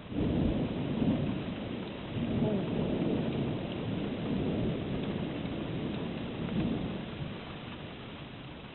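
Rolling thunder that breaks in suddenly, swells again about two and a half seconds in, then rumbles on and fades near the end, over a steady background hiss.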